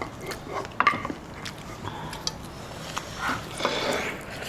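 Close-miked eating sounds, chewing and sucking at hot pot food, with a few sharp clicks of utensils on dishes, the loudest about a second in.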